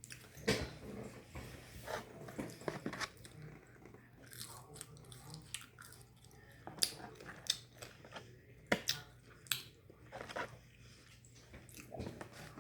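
A person biting and chewing crunchy fried food close to the microphone, with sharp crunches at irregular intervals, the loudest about two-thirds of the way through, over a faint steady low hum.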